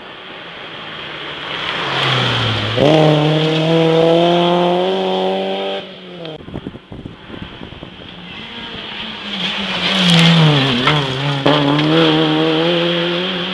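Two rally cars passing one after another at high revs on a stage. The first engine climbs and holds a high note, then cuts off suddenly. The second dips briefly about ten seconds in and then climbs again as it accelerates away.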